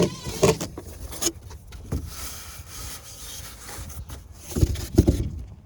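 Scattered knocks and rubbing, handling noise: a few sharp taps in the first two seconds and a cluster of low thumps near the end, with a soft hiss in between.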